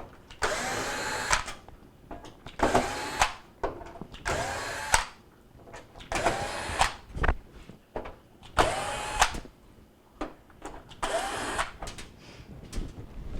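Cordless drill/driver backing out Phillips screws from a microwave's sheet-metal outer cabinet: six short runs of about a second each, the motor whine rising as each one starts.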